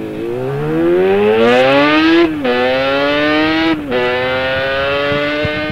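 Sport motorcycle engine accelerating hard, its pitch climbing and then dropping sharply as it changes up a gear, twice: about two seconds in and again near four seconds.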